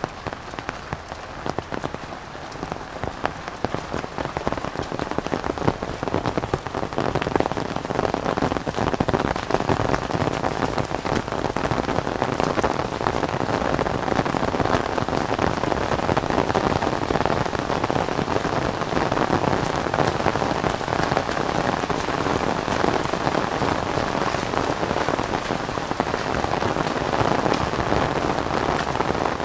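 Heavy rain falling, with a dense, even patter of drops hitting an umbrella overhead. It grows louder over the first several seconds and then holds steady.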